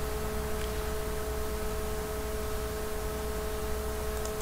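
Steady electrical hum and hiss from the recording setup, with two held tones, a mid-pitched whine over a low hum. A couple of faint clicks stand out, one early and one near the end.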